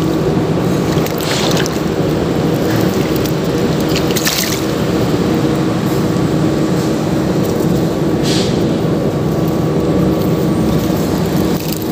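A motor running steadily with a constant low hum, with three brief hisses about a second, four seconds and eight seconds in.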